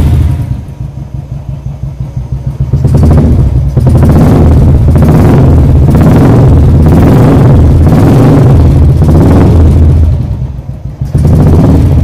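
Royal Enfield single-cylinder engine running through an aftermarket exhaust. It pulses unevenly for the first few seconds, is held at high revs with repeated swells, drops back briefly near the end, then rises again.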